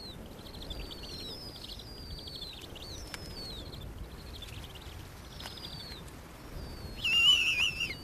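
Snowy owl owlets begging while being fed: repeated thin, high whistling calls that fall in pitch, mixed with rapid peeping, and a louder wavering squeal about seven seconds in.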